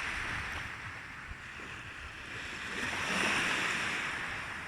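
Sea waves washing in: a hissing wash that swells to a peak about three seconds in and then ebbs away.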